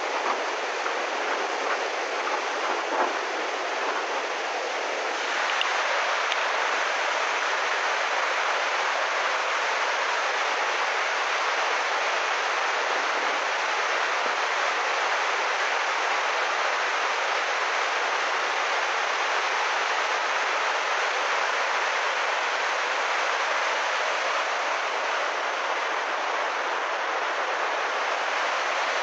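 Flash-flood torrent of muddy water rushing in a steady, dense rush, a little louder from about five seconds in.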